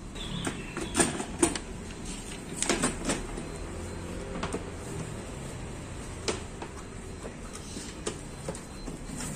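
Hard plastic clicking and knocking as the white panels of an Olymplast ODC 03 M drawer cabinet are pressed and snapped into the cabinet's base. There are several separate sharp clicks, bunched in the first three seconds, with a few single ones later.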